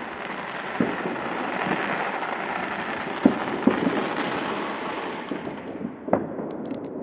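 Fireworks: a dense crackle of many small bursts, cut by sharp bangs about a second in, several between three and four seconds in, and one louder bang near the end. The crackle fades away about six seconds in.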